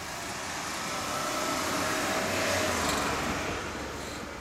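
A road vehicle passing by on the street, swelling to its loudest about two and a half seconds in and then fading away.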